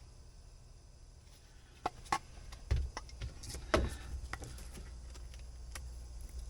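A handful of sharp clicks and knocks about two to four seconds in, over a steady low hum: a can of expanding spray foam being handled and worked while it fails to spray, which the user takes for a dud can.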